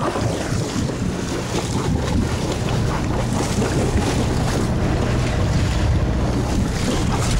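Fishing boat's engine running with a steady low drone, under wind buffeting the microphone and the wash of sea water.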